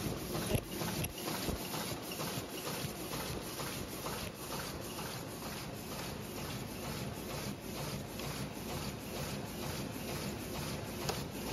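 High-speed paper cup forming machine running, its mechanism clattering in an even rhythm of about two and a half strokes a second, which fits a rate of about 150 cups a minute.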